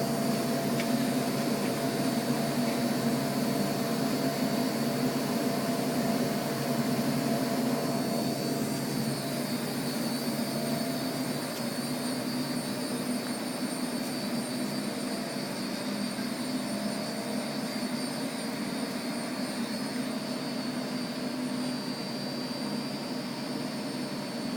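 Maino garment dyeing and washing machine running: a steady machine hum with a thin high whine over it, easing off slightly in level about a third of the way through.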